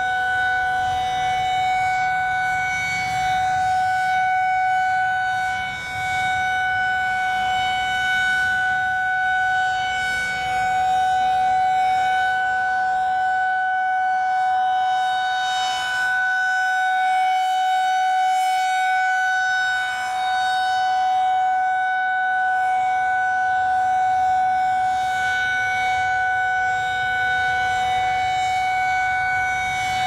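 Federal Signal 2001-SRN outdoor warning siren sounding a steady tone during a routine monthly test. Its loudness swells and dips every several seconds as the rotating horn sweeps past.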